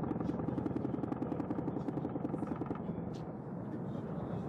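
Helicopter overhead, its rotor making a fast, even chop that eases off about three seconds in.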